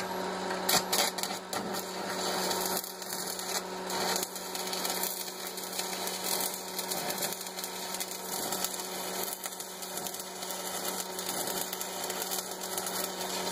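Stick arc welding on steel angle iron: the arc sputters as it is struck, then settles into a steady crackling buzz as the bead is run along the joint.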